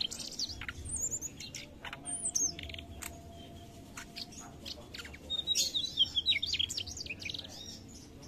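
Mugimaki flycatcher singing: quick, high twittering and swooping notes in short bursts, with a lull in the middle and a longer, denser run about two thirds of the way in.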